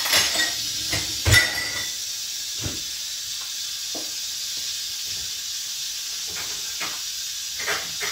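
Crockpot Express pressure cooker venting steam through its release valve in a steady hiss after a quick pressure release at the end of cooking. A couple of knocks near the start, the louder one about a second in.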